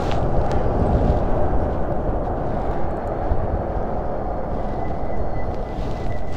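Wind rushing over the action camera's microphone and tyres rolling on asphalt as a Super73 RX electric bike rides along at speed. A faint, high, steady whine comes in near the end.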